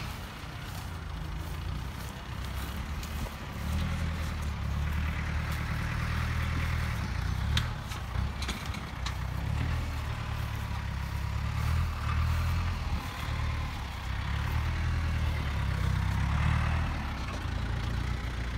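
Compact tractor with a front-end loader running as it works, its engine hum swelling and easing in level. A few light knocks sound about eight seconds in.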